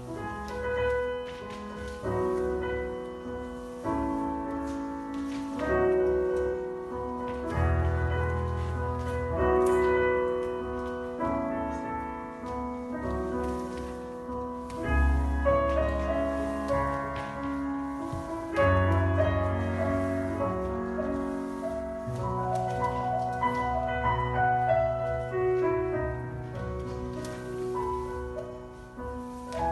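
Classical-style solo piano music, with chords and melody notes changing every second or two over held bass notes.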